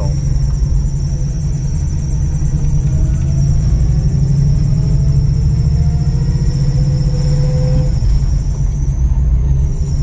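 A 1964 Chevy II Nova's engine running as the car accelerates, heard from inside the cabin, with a belt squeal over the engine rumble. The squeal rises with engine speed. It is the alternator belt slipping, which the owner puts down to a loose belt and an alternator loaded by an always-on electric fan.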